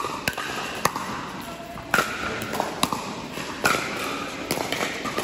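Pickleball rally: paddles hitting a hard plastic ball, sharp pops about once a second with smaller clicks between, in a large indoor hall.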